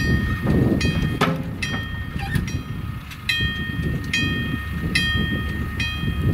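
Wig-wag railroad crossing signal's bell ringing steadily, one clear strike a little more than once a second while the signal is active, over a continuous low rumble.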